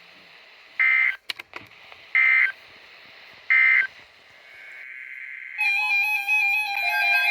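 Three short buzzing data bursts of the Emergency Alert System end-of-message code, sent by NOAA Weather Radio about 1.3 seconds apart over radio hiss and a few clicks. They signal that the alert broadcast is over. Electronic music with steady synth tones starts about five and a half seconds in.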